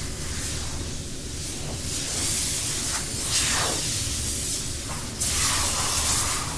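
A wet shot-peening machine's jet of fine shot in water sprays and hisses against a metal engine part. It comes in two loud bursts, about two seconds in and again about five seconds in, over a steady low hum.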